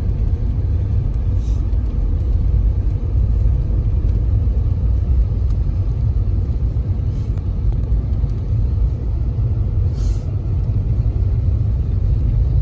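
Steady low rumble of a Mercedes-Benz car driving on a snow-covered road, heard from inside the cabin: engine and tyre noise, with a few faint ticks.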